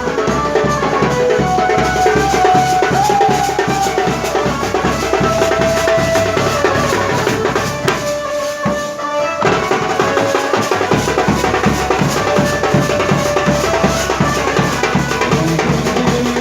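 Indian band playing a Gujarati tune: a melody line over fast, heavy drumming with bass drum and snare. The music breaks off for about a second near the middle, then picks up again.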